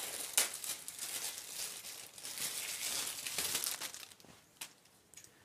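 Plastic packaging crinkling as an accessory is unwrapped by hand, dying down about four seconds in, with one light click shortly after.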